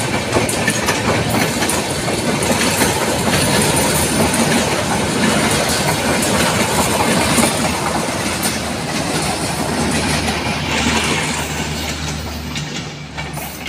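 Bangladesh Railway Intercity passenger coaches running past at speed, their wheels clattering steadily over the rail joints; the sound fades near the end as the train draws away.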